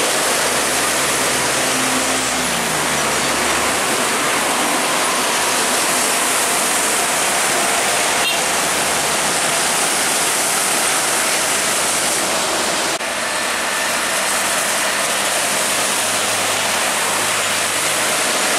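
Traffic on a rain-wet road: a steady hiss of truck and motorcycle tyres on wet asphalt, with engine noise from passing heavy trucks underneath. It breaks briefly about thirteen seconds in.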